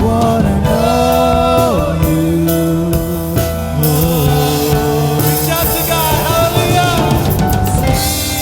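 Live worship band playing with singing: held vocal notes that slide between pitches over bass, keyboard and drums.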